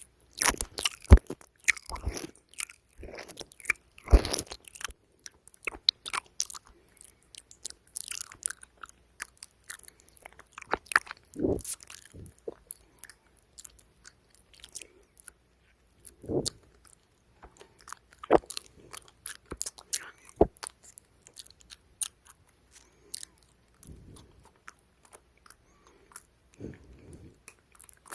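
Close-miked ASMR mouth sounds: irregular wet clicks and smacks of the lips and tongue, busy at first and sparser in the second half.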